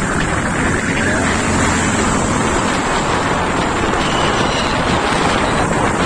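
Steady rush of wind on the microphone of a moving two-wheeler, with its engine and tyre noise underneath.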